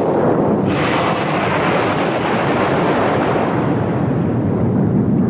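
A volcano's explosive eruption: a sudden blast under a second in, over a continuous deep rumble, its roar dying away over the next few seconds.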